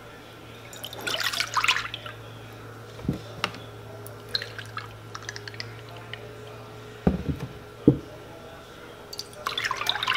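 Almond milk poured from a ceramic measuring cup into a ceramic bowl, splashing and trickling, twice: about a second in and again near the end. In between, quieter pouring from the carton into the cup, and two dull knocks on the counter.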